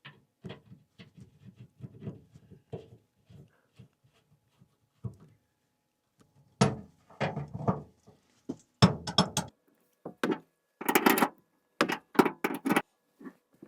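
Handling noises of metal gas fittings and a propane line being fitted: a string of light knocks and clicks, getting louder with sharp metallic clinks and rattles about halfway through.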